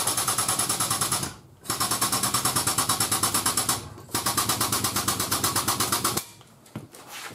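Hydraulic pump driving a 10-ton frame straightener's ram, pulsing rapidly in three bursts with short pauses between them, as the chain pulls up on the truck's bent rear frame rail.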